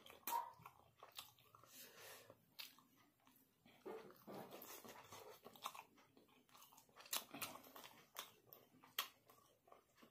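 A person chewing a mouthful of spicy instant noodles, heard as a scatter of short, wet clicks and smacks of the mouth.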